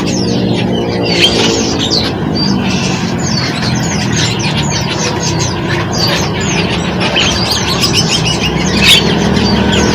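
Many small songbirds chirping and twittering in quick, overlapping calls, over a steady low drone.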